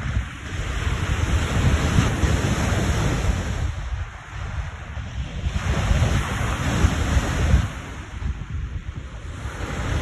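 Lake waves crashing on the shore, coming in as surging washes a few seconds apart, with wind buffeting the microphone as a steady low rumble underneath.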